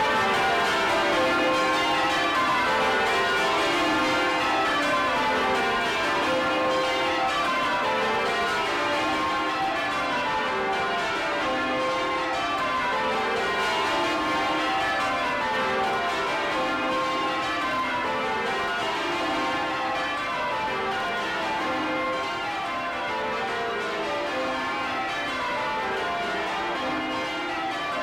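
A 1932 Taylor ring of twelve church bells, tenor in C, swung full circle in change ringing and heard close up from inside the bell chamber. Each row strikes down the scale from the high trebles to the deep tenor, one cascade after another in a steady rhythm.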